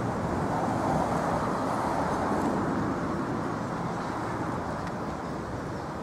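Road traffic noise, a steady rush of passing vehicles that fades slowly.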